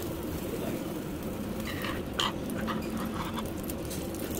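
Steady restaurant background hum and hiss, with a short run of light clicks and taps of tableware from about two seconds in.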